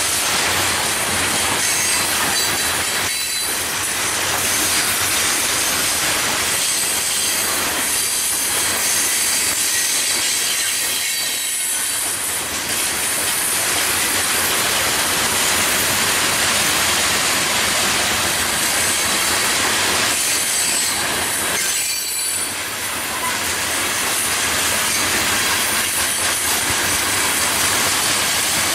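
Florida East Coast Railway freight train of steel hopper cars rolling past at close range: a steady rumble and rush of wheels on rail, with thin high-pitched wheel squeal over it and a few brief lulls between cars.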